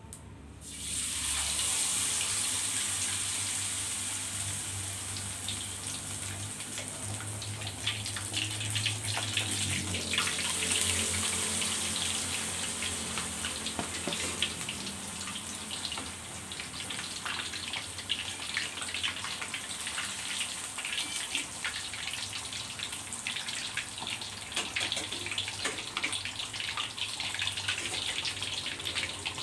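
Battered catfish pieces going into hot oil in a wok: a loud sizzle breaks out about a second in and carries on as the fish deep-fries, full of fine crackling.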